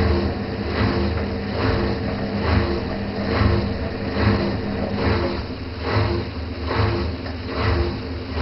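Washing machine running: a steady motor hum with a regular swishing swell a little more than once a second.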